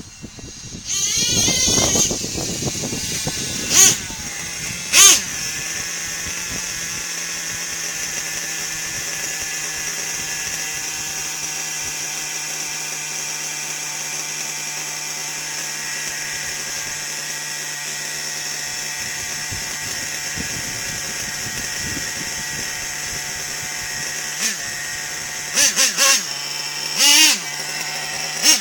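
Radio-controlled monster truck's motor whining and revving, its pitch rising and falling in the first couple of seconds and again in bursts near the end, with two sharp knocks about four and five seconds in. In between it holds a steady, even pitch.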